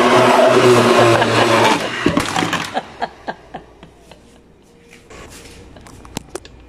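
Osterizer countertop blender motor running with a jar full of beans, a loud steady hum that cuts off about two seconds in. After that, scattered light clicks and knocks at a much lower level.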